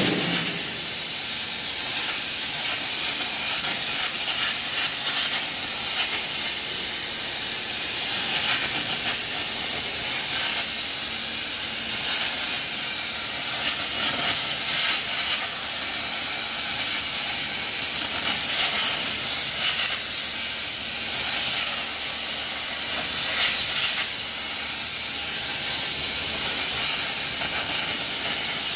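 The plasma torch of a STYLECNC STP1530R CNC plasma table cutting metal plate: a steady, loud, high hiss from the arc and its gas jet that runs on without a break.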